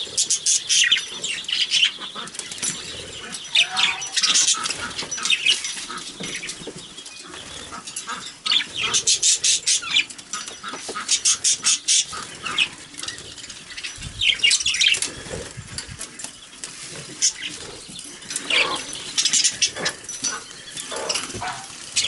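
Pet budgies air bathing: repeated bursts of rapid wing-flapping every few seconds, with light bird chatter between the bursts.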